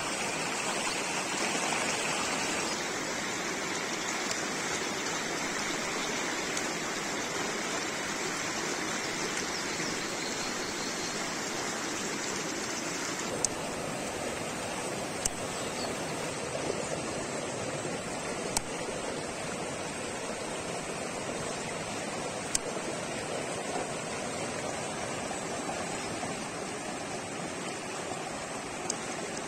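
Mountain stream rushing steadily over rocks. In the second half, a few sharp, separate snips of kitchen scissors cutting through the fish's fins.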